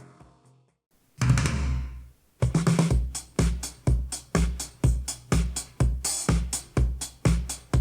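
Disco-style dance music played through a pair of JBL LSR305 studio monitors. The previous playback fades out, there is a brief silence and a short burst, and from about two and a half seconds in a steady kick-drum beat runs at about two thumps a second.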